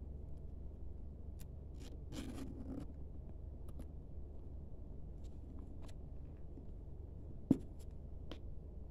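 Handling of a faux-leather shoulder bag: its metal zip is pulled along briefly about two seconds in, with light ticks of hardware and leather through the rest and one sharp knock near the end, under a steady low hum.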